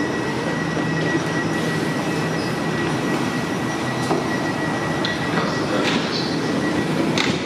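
Electric multiple-unit train beside the platform, its motors and equipment giving a steady rumble and hum. A thin, steady high whine sets in about a second and a half in and stops near the end, where there is a short click.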